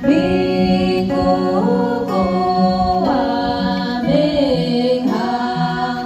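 Three women singing a song together in long held notes that move in steps, with an acoustic guitar accompanying.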